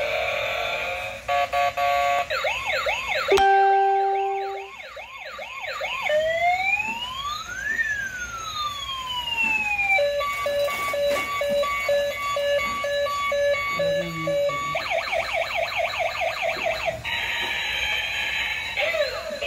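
Toy police car's electronic siren effects, switching between patterns: a fast warble, a slow wail sliding up and down, and a pulsing beep.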